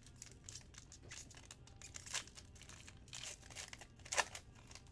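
Foil wrapper of a Panini Prizm football card pack being torn open and crinkled by hand. There are louder crinkles about two seconds in and another near the end, the loudest.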